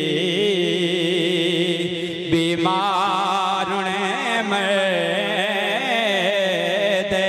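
A man singing a naat (devotional Punjabi/Urdu song) into a microphone, drawing out long wavering notes; about two seconds in he breaks briefly and comes back on a higher phrase.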